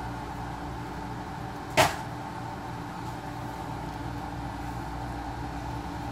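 A steady low hum with a single sharp click about two seconds in.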